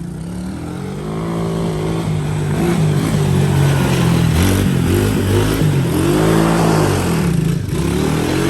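125cc Coolster ATV's single-cylinder four-stroke engine revving up and down several times as it is ridden, its pitch rising and falling with the throttle.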